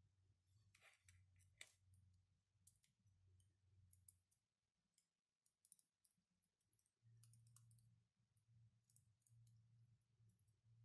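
Faint, irregular clicks and ticks of small 3D-printed plastic counter parts being handled and fitted together with a thin metal pin or tweezers, over a faint low hum.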